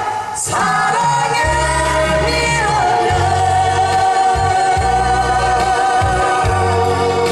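A mixed vocal group of two women and two men singing a slow Korean ballad together into microphones over amplified accompaniment with a bass line. After a breath about half a second in, they hold one long note through the second half.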